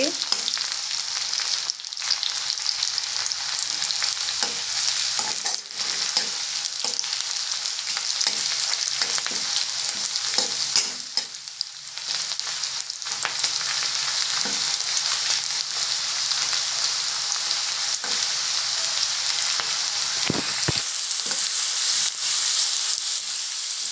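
Sliced onion, whole spices and grated garlic sizzling in hot oil in a metal kadhai, with a steel spoon scraping and tapping against the pan as they are stirred; the onion is being fried until it turns pink.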